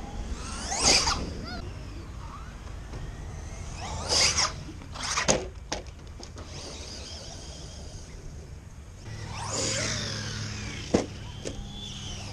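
Radio-controlled truck's motor whining up and down in pitch as it is driven hard past the ground, in three bursts, with a few sharp knocks in between.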